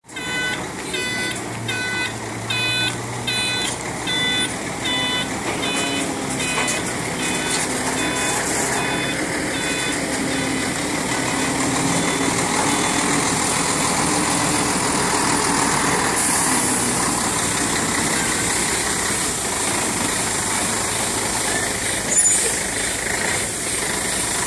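A truck's reversing alarm beeps steadily over its running engine, and the beeps fade away about halfway through. A brief louder noise comes near the end.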